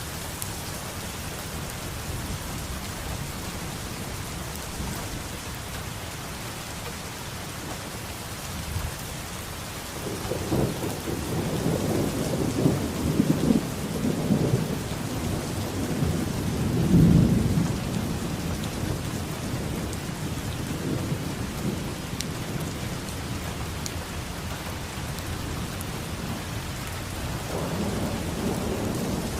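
Steady rain falling, with a long roll of thunder building about a third of the way in, peaking after about seven seconds, and fading, and a fainter rumble near the end.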